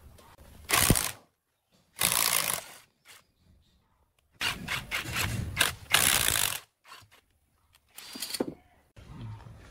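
Power impact wrench run in four short bursts, the longest about two seconds in the middle, spinning off the nut on the drive pulley of a plate compactor's vibrator housing.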